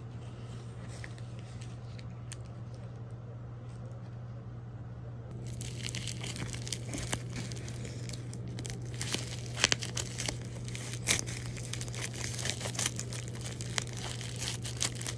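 Bubble wrap and plastic film crinkling and crackling in a series of sharp bursts as a bubble-wrapped box is handled and cut open with scissors. Before that, about the first five seconds hold only quieter handling noise, and a low steady hum runs underneath.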